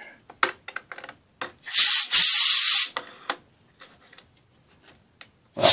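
Small scratching and clicking of a brush working under laptop keys. About two seconds in there is a steady hiss lasting about a second, from a can of compressed air sprayed under a key.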